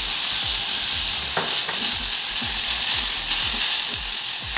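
Crushed garlic sizzling steadily in hot bacon fat in a saucepan as it is stirred with a spatula, with a light tap about a second and a half in.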